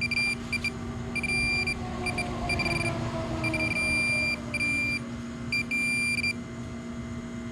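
Metal-detecting pinpointer beeping in on-off runs as it is probed over a target in the sidewall of the dig hole, the high beeping stopping about six seconds in.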